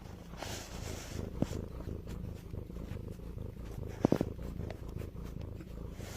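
Domestic cat purring steadily, close up, with a fast low rumbling pulse. A couple of short sharp clicks come about a second and a half in and again about four seconds in.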